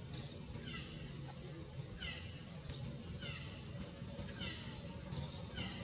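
Birds calling in the surrounding trees: quick calls that sweep down in pitch, repeated about once a second, with a few short high chirps among them, over a steady low background hum.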